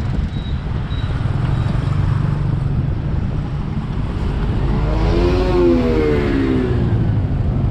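Riding on a motorbike through busy city traffic: its engine hums steadily under wind rush and the noise of surrounding scooters and cars. About five seconds in, a nearby engine's pitch rises and then falls as it revs close by.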